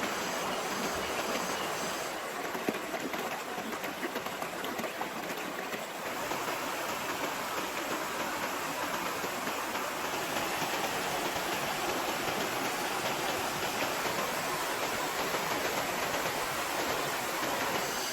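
Heavy rain falling steadily, a dense hiss of countless drops striking.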